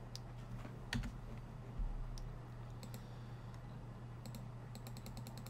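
Computer mouse and keyboard clicks: a few scattered clicks, then a quick run of light clicks near the end, over a low steady hum.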